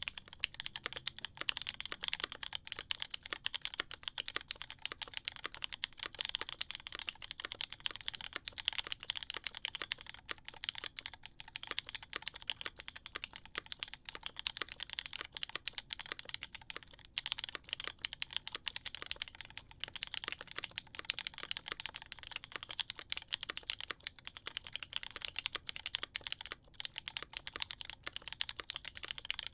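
Steady fast typing on an LW-75 gasket-mounted custom mechanical keyboard with an aluminium plate, lubed Cotton Candy switches and GMK keycaps: a dense, unbroken run of keystroke clacks.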